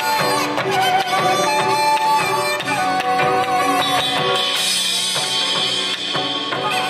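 Korean fusion traditional ensemble playing an instrumental passage: several gayageum zithers plucking, a held wind melody line and drums beating a rhythm.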